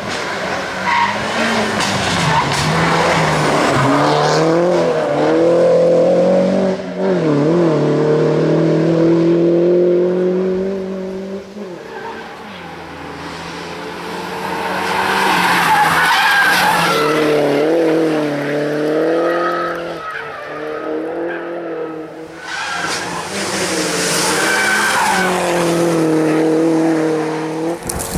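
A MINI Cooper S John Cooper Works four-cylinder engine revved hard on a hillclimb, its note climbing and dropping again and again through gear changes and lift-offs, in three loud passes. Tyres squeal through the bends.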